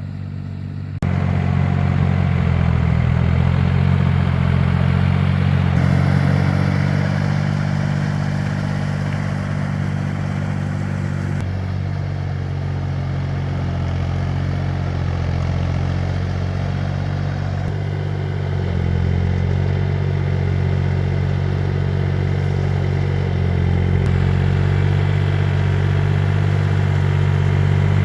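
A farm tiller's engine runs steadily. It gets louder about a second in, and its note shifts a little a few times after that.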